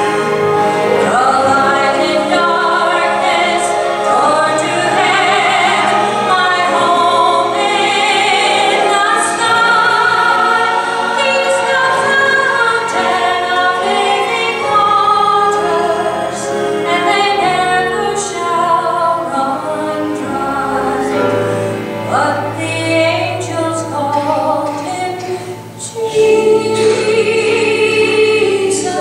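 A woman singing a gospel song solo over instrumental accompaniment, holding one long note near the end.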